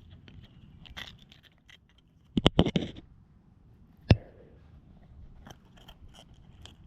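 Handling noises: a quick run of sharp knocks and rattles about two and a half seconds in, then a single sharp click about a second and a half later.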